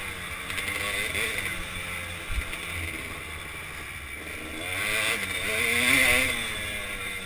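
A 2005 Kawasaki KDX200's two-stroke single-cylinder engine, heard from a helmet-mounted camera while the bike is ridden, revving up and down with the throttle. The revs climb to their loudest about six seconds in, then ease off. There is a brief knock a little over two seconds in.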